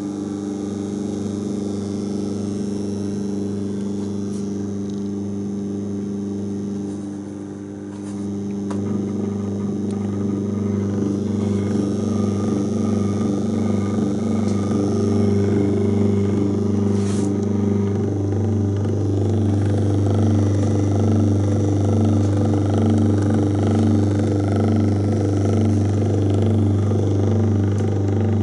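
Old electric motor from a Butcher's 35mm projector running on the bench under an electronic speed controller, a steady electric hum. About eight seconds in it grows louder and rougher, and there is a single sharp click a little past the middle.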